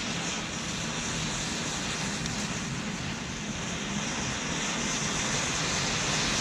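Bundles of wooden matches burning beneath a pan: a steady rushing of flame that slowly grows louder as more match heads catch.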